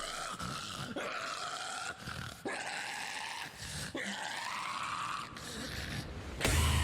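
Extreme metal vocalist's unaccompanied inhuman scream: a string of shrieking, pig-squeal-like cries, each about a second long and bending in pitch. The full band crashes back in near the end.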